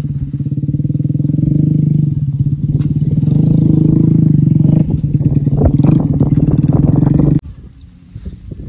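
Diesel farm tractor engine running loud and close, its revs rising and falling as it works a front grab loader, with clattering knocks over the engine in the later seconds. The engine sound cuts off abruptly about seven seconds in, leaving fainter knocks.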